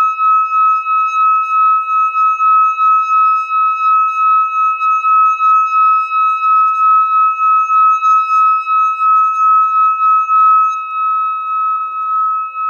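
Hand-held metal singing bowl sung by circling a wooden mallet around its rim: one steady ringing tone that wobbles in loudness about three times a second.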